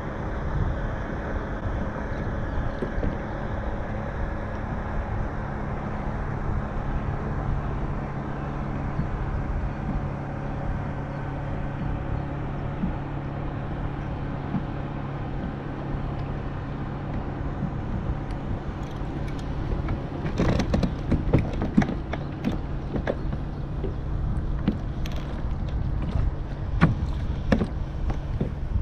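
A motor drones steadily over wind on the microphone. From about twenty seconds in, a run of sharp clicks and knocks comes in as the casting reel is wound in and the line and tenya are handled.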